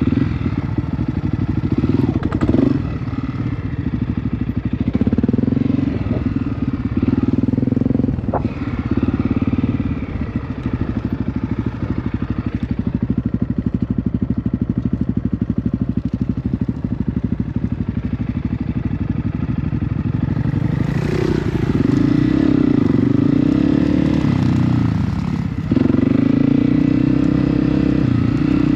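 Honda CRF250F's single-cylinder four-stroke engine running on the trail, its revs rising and falling with the throttle, with a few sudden drops in pitch and a couple of sharp knocks.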